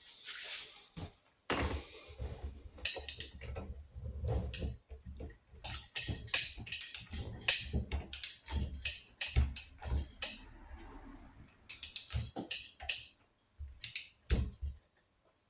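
Metal jingling and clinking in irregular bursts, with dull knocks against the workbench, as a steel roller chain and a motorcycle gearbox are handled and shifted in a bench vice.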